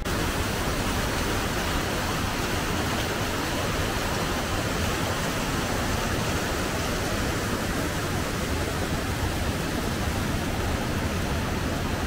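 Steady rushing of a mountain stream and small waterfall tumbling over rocks.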